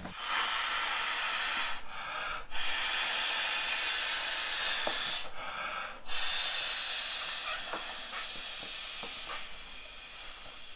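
A man blowing by mouth into the valve of an inflatable camping pillow: three long breaths of air, with short gaps between them, the last one slowly tailing off.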